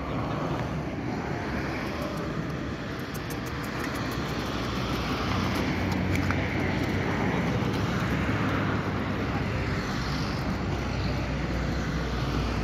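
Engine noise of a passing motor vehicle: a steady rumble that swells over the first few seconds, holds, and eases slightly near the end.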